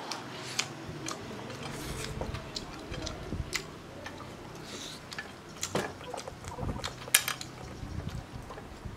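Chopsticks clicking against a porcelain rice bowl in scattered light taps, the loudest about seven seconds in, with the mouth sounds of chewing sticky-rice-stuffed pork stomach.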